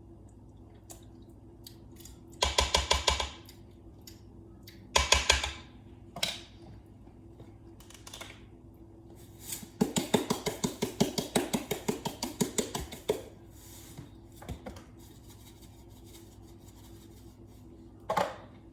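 Salt and pepper grinders being twisted over the pot to adjust the seasoning: several short bursts of rapid clicking grinding, the longest lasting about three seconds, with a little clinking of kitchenware between them.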